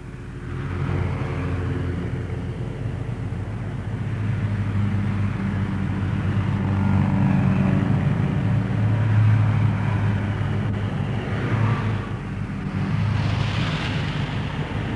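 A motor vehicle's engine running steadily, coming up about half a second in.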